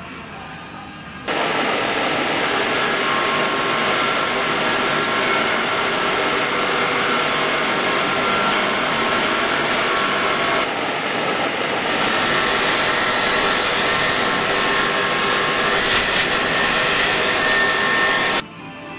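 Bench grinder with a belt-sander attachment grinding metal tubing: a loud, steady grinding hiss over the motor's hum. It starts abruptly about a second in, jumps in level twice partway through, and cuts off sharply near the end.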